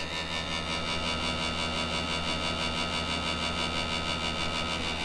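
Cricket bowling machine running at its 95 miles per hour setting: a steady motor hum with a high, even whine.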